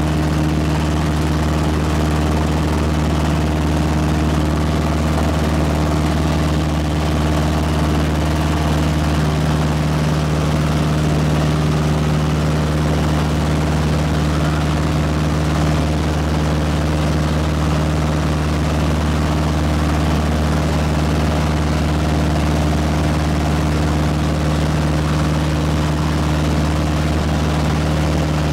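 Piper L-21 Super Cub's piston engine and propeller running steadily at one unchanging pitch, heard inside the cockpit during the climb-out after takeoff.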